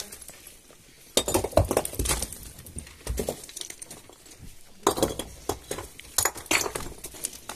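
Quilts and blankets being lifted and set down, with knocks and clinks of metal pots and dishes, in two spells of handling noise.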